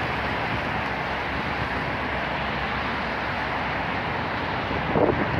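Steady low rumbling outdoor noise: wind on the microphone mixed with distant city traffic across the river, with a brief louder buffet near the end.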